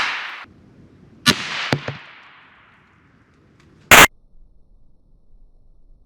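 Sharp reports from a suppressed Savage Axis II rifle firing .350 Legend rounds. One crack about a second in rings on briefly with an echo and is followed by two smaller cracks. A very short, very loud crack comes about four seconds in.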